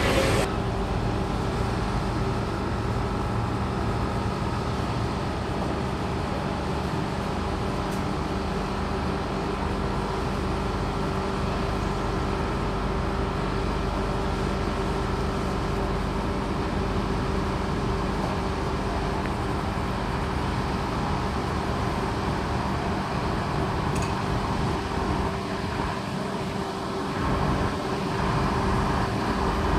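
Heritage CPH diesel rail motors running with a steady engine drone, standing first and then moving off and drawing closer, a little louder near the end.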